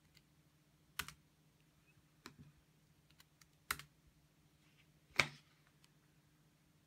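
Sharp, irregular clicks and pops from a 13-inch Retina MacBook Pro's case: four loud ones roughly a second and a half apart, with fainter ticks between, over a faint steady low hum. The owner traced this popping to heat plus metal-on-metal contact inside the laptop.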